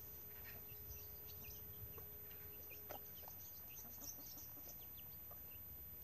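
Chicks peeping: many short, high cheeps scattered throughout, faint.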